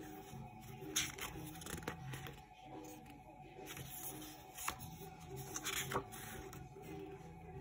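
Quiet background music, over which the glossy paper pages of a CD booklet rustle and flap as they are turned by hand. There are a few short, sharp page sounds about a second in and again near six seconds.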